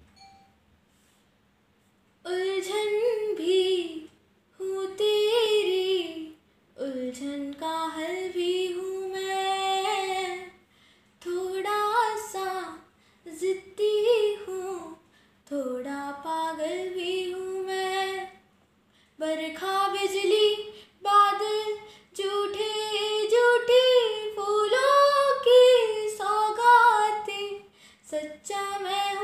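A boy's unbroken voice singing solo and unaccompanied, in phrases of a few seconds with short breaks for breath, starting about two seconds in.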